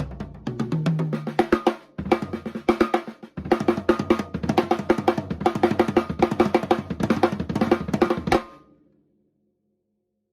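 Drum kit played in fast strokes and rolls, built around a 13-inch TAMA snare drum with toms and bass drum. It breaks off briefly twice, stops about eight seconds in and rings out into silence.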